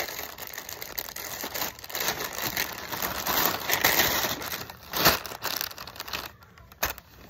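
Clear plastic poly bag crinkling and rustling as a hand pulls a folded outfit out of it, with a sharp crackle about five seconds in; the crinkling dies down about six seconds in.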